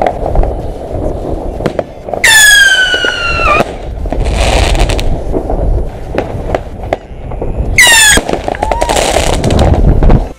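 Fireworks: two whistling fireworks shriek, the first about two seconds in for over a second with a slowly falling pitch, the second shorter near the end, each followed by a hissing crackle. Scattered sharp bangs over a steady low rumble.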